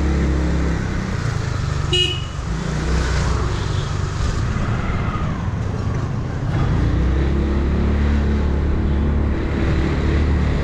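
Yamaha R6 inline-four sport bike running under way through its Akrapovic exhaust, its engine note easing off through the middle and strengthening again near the end, in road traffic. A short horn toot sounds about two seconds in.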